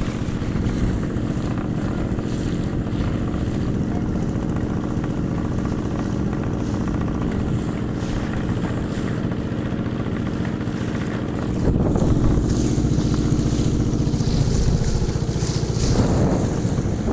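Boat engine running steadily, a low drone, which gets louder about twelve seconds in.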